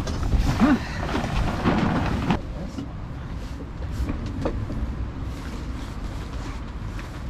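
Wind rumbling on the microphone, with a plastic tarp rustling and crackling as it is pulled down over roughly the first two seconds; after that only the wind rumble is left.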